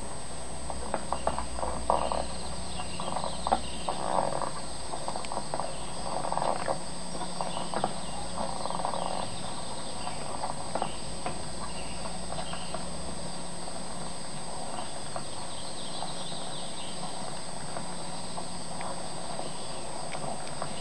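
Outdoor nature ambience from a film soundtrack, with birds and insects and scattered faint sounds in the first half, heard through a television's speaker. A steady high whine sits under it, and a low hum stops a little past halfway.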